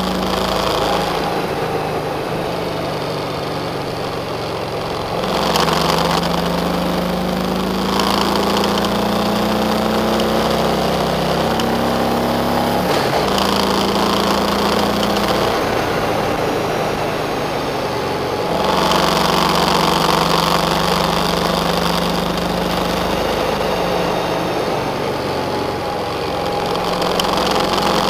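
Car engine and road noise heard from inside the cabin while driving. The engine note steps to a new pitch a few times, about 5, 13 and 18 seconds in.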